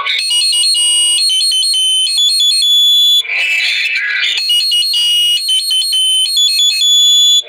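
Olympus Note Corder DP-201 digital voice recorder playing back a recording through its small built-in speaker: a shrill, electronic-sounding melody of high notes stepping from pitch to pitch, with a rougher, voice-like passage about three seconds in.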